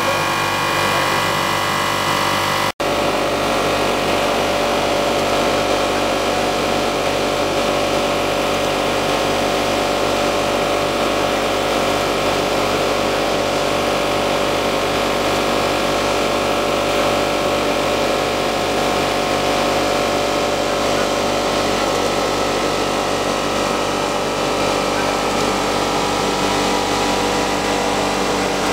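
Blown film extrusion line running: a steady machine hum and whine of motors and blowers with several steady tones. The sound cuts out for an instant about three seconds in.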